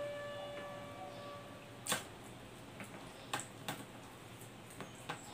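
Mouth sounds of a man chewing bread: a handful of faint, sharp smacks and clicks, spread out across a few seconds. A steady held tone fades away during the first second and a half.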